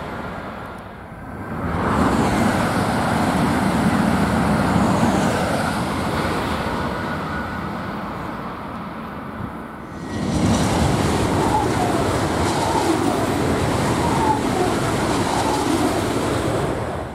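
High-speed electric trains passing at speed: two long rushes of wheel, rail and air noise, the first building about two seconds in and easing off, the second swelling about ten seconds in. The second is a Renfe AVE Class 103 (Siemens Velaro) train.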